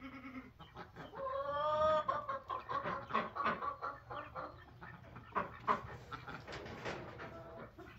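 A hen clucking: one drawn-out call about a second in, then a string of short, quick clucks.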